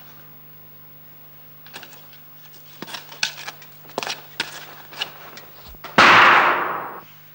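A few light clicks and knocks, then a single loud gunshot about six seconds in, with a ringing tail that dies away over about a second.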